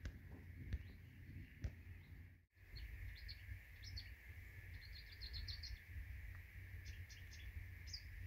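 Small birds chirping in short calls, with a quick series of chirps a little past the middle, over a steady high hiss and a low rumble. A few sharp clicks sound in the first two seconds, and the sound drops out briefly about two and a half seconds in.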